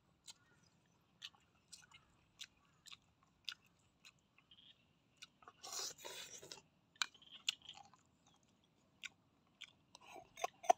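Close-up eating of cooked snails in their shells: chewing and sharp clicks and taps of the shells, with a louder noisy burst about six seconds in and a cluster of clicks as a shell is sucked near the end.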